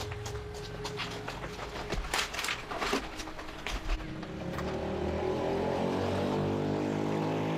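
A few knocks and clicks, then a motor running up from about four seconds in, its pitch rising steadily and its level growing until it cuts off abruptly.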